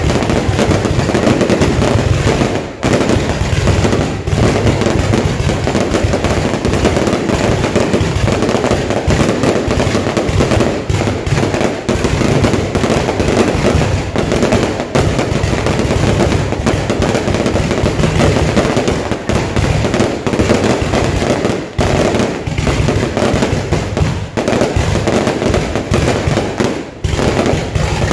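Loud, continuous rapid crackling and banging of fireworks, a dense unbroken barrage with only a few brief lulls.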